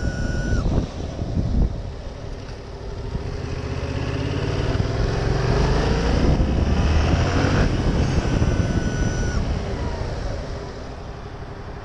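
Yamaha MT-07's parallel-twin engine running under way, its pitch rising as it accelerates and then easing off, with wind on the microphone. A brief steady high whine sounds right at the start and again about eight seconds in, during deceleration, where the owner reports a weird noise.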